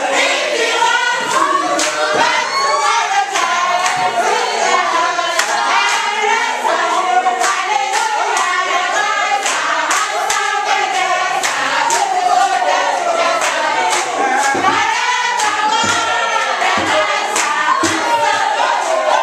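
A group of students singing a song together in chorus, with steady rhythmic hand clapping.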